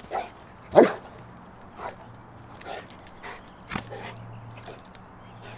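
Cane Corso giving one loud bark about a second in on the 'watch' bark command, followed by several softer short sounds.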